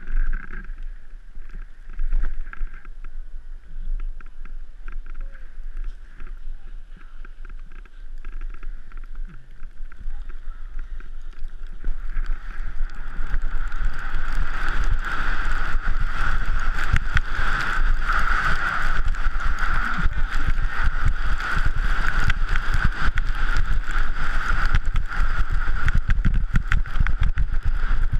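Wind rushing over a helmet-mounted camera and skis hissing and scraping on snow during a downhill run, growing louder from about twelve seconds in as speed picks up on the open slope.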